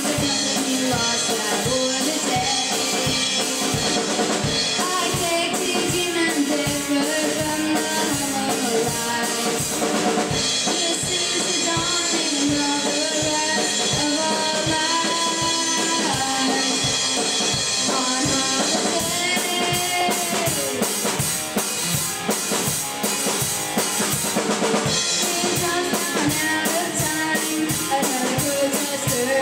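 Rock music from a small band: electric guitar over a steady drum-kit beat, with singing.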